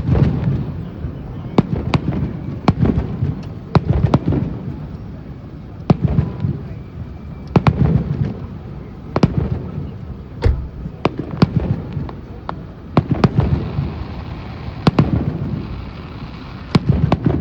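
Fireworks display: aerial shells bursting in a steady string of sharp bangs, some in quick clusters, over a continuous low rumble.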